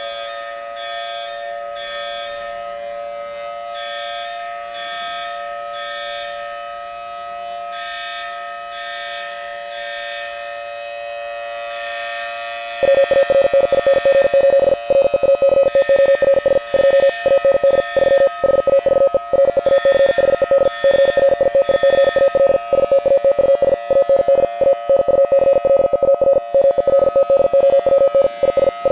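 Warning siren holding a steady, multi-tone wail that rises slightly at the start. About 13 seconds in it suddenly gets much louder and is broken by rapid, irregular dropouts. It is the nuclear plant's evacuation siren, the signal that measures against a meltdown have failed.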